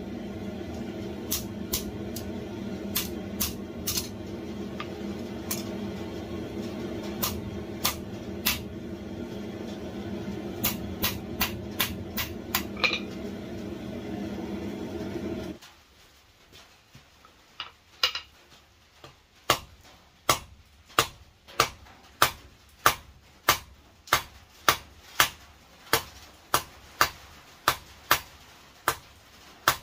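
Hand hammer striking hot steel held in tongs on an anvil, sharp ringing blows. In the first half the blows are scattered over a steady low hum that cuts off abruptly about halfway. After a short pause the hammering resumes at a steady pace of roughly one and a half blows a second.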